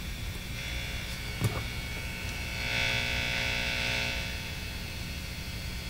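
Steady mains hum and hiss from the opened DeArmond 1802 wah pedal's circuit amplified through a guitar amp, with a click about 1.5 s in. The hiss swells for about a second and a half in the middle, the noise the pedal adds over part of its pot range.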